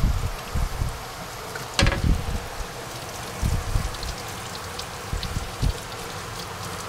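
Tap water running from a faucet and splashing onto an aluminum panel and into a utility sink, with several dull knocks and one sharp knock about two seconds in as the panel is handled in the sink.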